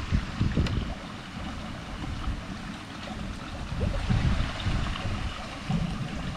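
Water sloshing and splashing at the surface, with wind buffeting the microphone in low gusts.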